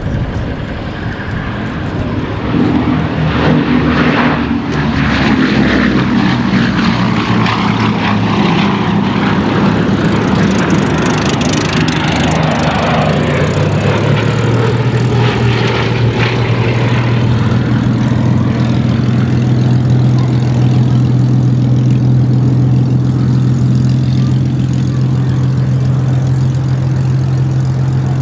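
Bristol Blenheim Mk I's twin Bristol Mercury nine-cylinder radial engines on a display pass. The engine note builds as the aircraft comes in, falls in pitch as it goes by, and settles into a steady low drone as it flies away.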